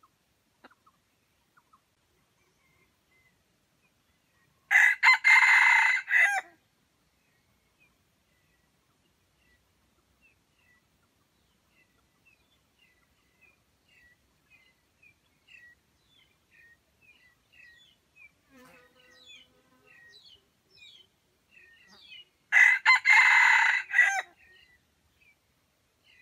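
A junglefowl rooster crows twice, each crow about two seconds long, the second coming some eighteen seconds after the first. Faint small-bird chirps run in between.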